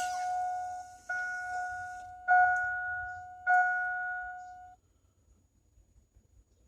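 Chevy Astro van's dashboard warning chime dinging four times, about a second apart, each ding fading before the next.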